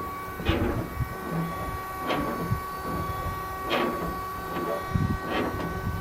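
Windshield wiper motor running off a hot-wired battery, with a steady whine and a swishing sweep of the wiper linkage about every one and a half seconds.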